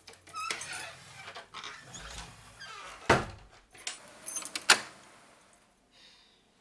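Rattling and clicking of a wooden door's lever handle and lock, with keys jangling. There are two sharp knocks, the loudest about three seconds in and nearly five seconds in.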